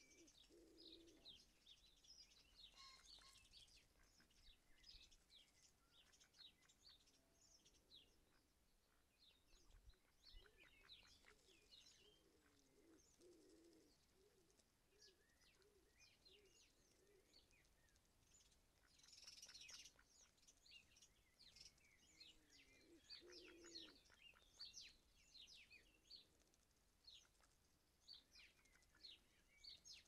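Faint garden birdsong: many small birds chirping and twittering throughout, with a pigeon cooing in short low phrases a few times. A brief louder rush of high sound comes about two-thirds through.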